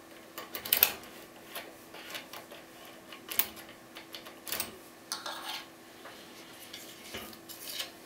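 Steel lock-picking tools clinking and scraping against a brass Vachette V5 euro-profile lock cylinder as they are worked in and out of its keyway: scattered sharp metallic clicks, the loudest about a second in, with a short scrape a little past five seconds.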